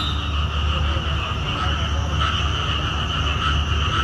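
Frogs croaking in a chorus over the steady low rumble of a diesel train's engine running.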